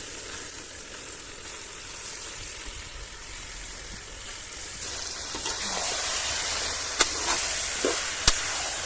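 Country chicken pieces sizzling in hot oil with onion-tomato masala as they are stirred in the pan. The sizzle gets louder about five seconds in, and two sharp knocks of the stirring spoon against the pan come near the end.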